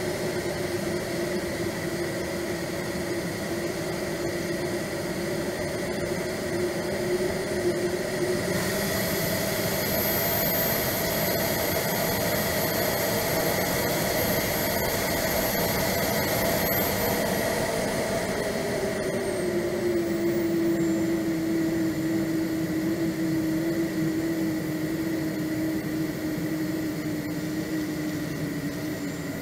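Swiwin 170B model turbine jet engine heard from on board the jet in flight, over rushing air. About eight seconds in, a high whine jumps up and holds as the turbine spools up. From about seventeen seconds the whine falls away as it spools down.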